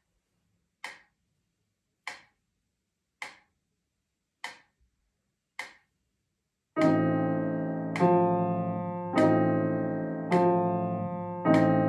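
A metronome ticks slowly, one sharp click a little over a second apart. About seven seconds in, an upright piano comes in with slow chords struck on each click, played hands together at a slow practice tempo.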